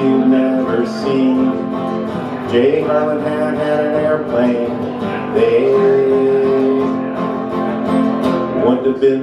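Two acoustic guitars strummed and picked together in a country-folk song, with a man singing long held notes over them.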